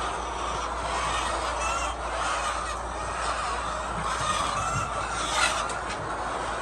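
A flock of laying hens clucking and calling, many short overlapping calls over a steady background din.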